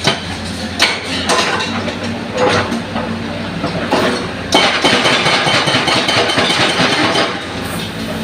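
Excavator's diesel engine running steadily as the hydraulic breaker stops hammering. A few sharp knocks and a stretch of scraping and crunching from about four and a half seconds in come from the breaker working broken concrete.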